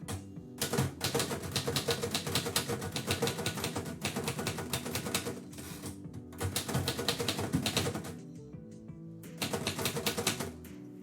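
Keys of a 1934 Royal Model O typewriter struck in quick runs: a long run of about four seconds, a shorter one of about a second and a half, and another of about a second near the end, over steady background music.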